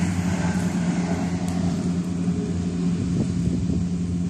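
A running engine's steady low hum, even and unchanging.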